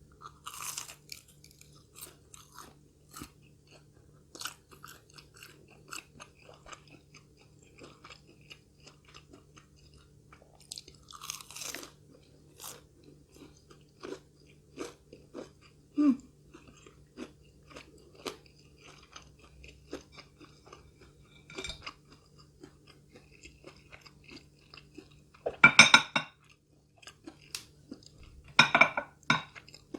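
Close-miked chewing of crispy fried crab nuggets: steady small crackles of crunching and mouth sounds, with two loud crunchy bites near the end.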